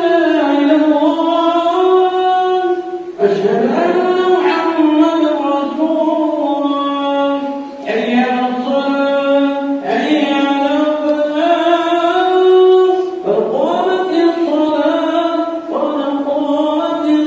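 A single man's voice chanting in Arabic in a melodic, drawn-out style: long sung phrases of a few seconds each, separated by short breaths.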